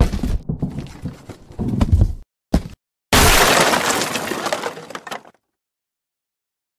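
Sound effect of a wooden crate being smashed apart: a run of knocks and thuds, a short pause, then a sudden loud crash about three seconds in that fades away over about two seconds.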